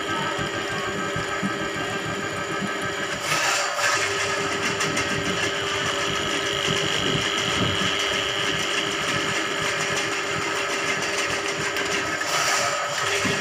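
Electric drain-cleaning machine running steadily, turning its spiral steel cable down a drain clogged with grease. There is a steady motor hum and whine, with two brief louder surges about three and a half seconds in and again near the end.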